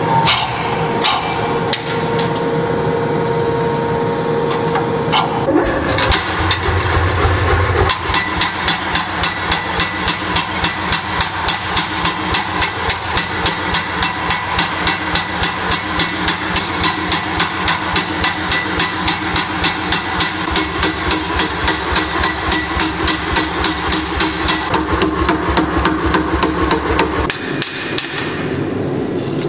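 A forging press running with a steady hum as it squeezes a red-hot steel axe blank. It is followed by a power hammer pounding the hot axe head in an even rhythm of about four blows a second for most of the stretch. Near the end, a hand hammer strikes the hot steel on an anvil.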